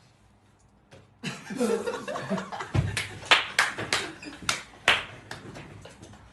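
After about a second of near silence, a person laughs and claps their hands several times in quick, irregular claps, which die away near the end.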